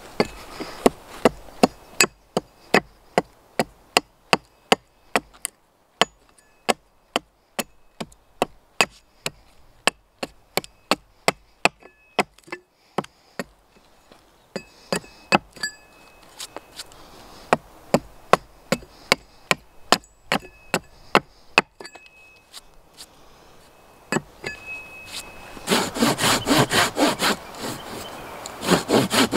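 A broad axe chopping into the top of an upright wooden post, sharp blows about two to three a second with a short pause partway through. Near the end a Silky Bigboy 2000 folding saw starts sawing the post with quick strokes.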